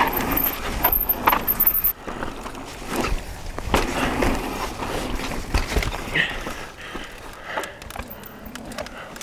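Mountain bike rolling down a dirt trail: tyre noise over the ground with frequent rattles, clicks and knocks from the bike over bumps. It is louder for the first two seconds, then drops and carries on quieter.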